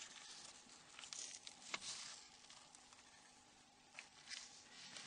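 Near silence with a few faint clicks and rustles: gloved hands handling a Nokia N93 flip phone.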